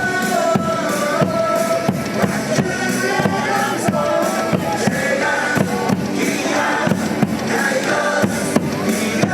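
Cheer music played over the stadium's loudspeakers, with a steady drum beat and a sung melody.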